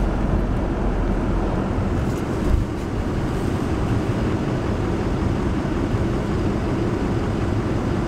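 Strong storm wind blowing on the microphone beside a rough sea: a steady rush of noise with a heavy low rumble.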